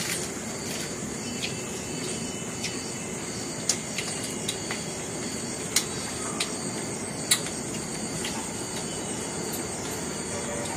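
Eating sounds as people chew pizza: scattered sharp clicks and smacks from mouths and handled paper napkins, over a steady high hiss.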